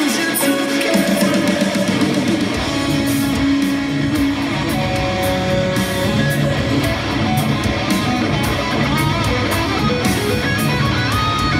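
Electric guitar, an Acacia Romulus through a Line 6 Helix modeller, playing heavy metal over a backing track with drums and bass. The low end fills out about a second in.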